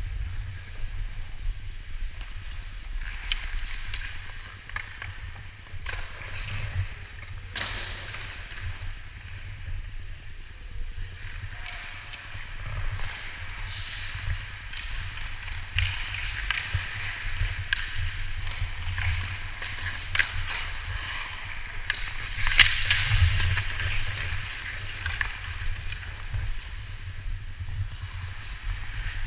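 Hockey skates scraping and gliding on rink ice, with sharp clacks of sticks and puck, over a low rumble. The loudest stretch of scraping and clacks comes a little over two-thirds of the way through.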